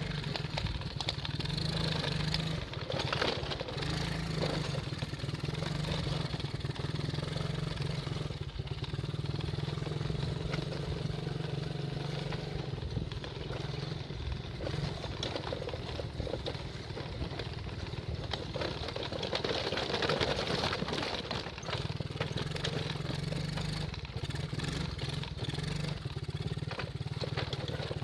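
Small off-road quad or dirt-bike engine running steadily under way, easing off briefly a couple of times.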